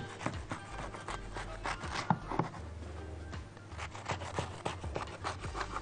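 Serrated knife sawing through a baked strawberry blondie slab and knocking on the wooden cutting board, a quick series of rasping strokes.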